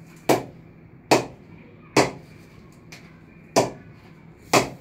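Cricket ball bounced off the face of an RNS Atomic grade 1 Kashmiri willow bat: five sharp knocks, roughly a second apart. It is a punch test, and the bat shows a strong punch.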